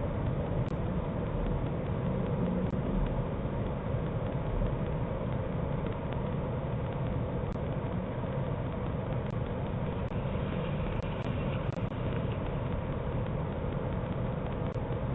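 Steady low outdoor hum and hiss picked up by a Ring security camera's microphone. The sound is thin and muffled, with nothing in the upper treble, and a few faint digital ticks.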